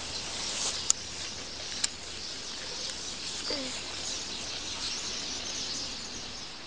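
Tall dry grass brushing and rustling as someone walks through a field, with birds chirping in the background and two sharp clicks in the first two seconds.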